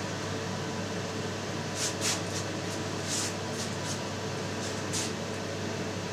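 Pork frying in oil in a lidded frying pan on low heat: a steady low hiss and hum with a handful of brief sizzling spits.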